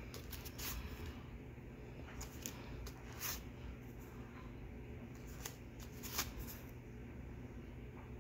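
Handmade cardstock greeting cards being handled: a few short paper rustles and taps as cards are picked up and moved, over a faint steady low hum.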